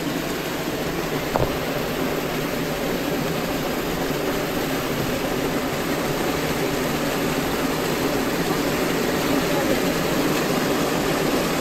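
Water rushing and splashing down a small rocky cascade close by, a steady noise with one brief click about a second and a half in.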